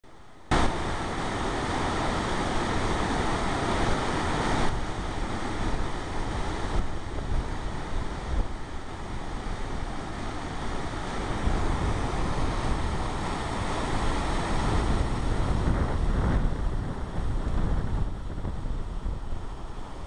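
Water pouring over a low river dam into churning white foam below, a steady rushing noise that starts abruptly about half a second in.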